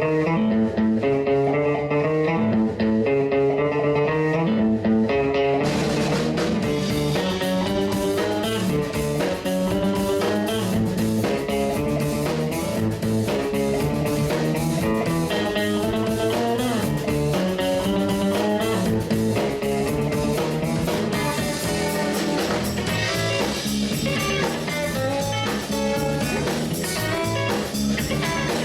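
Blues-rock background music with plucked guitar; drums and cymbals come in about six seconds in.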